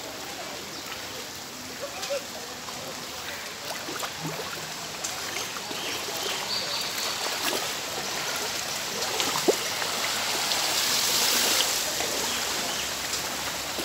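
Shallow street floodwater sloshing and splashing as feet wade through it, growing louder about three-quarters of the way through, with one sharp click a little past the middle.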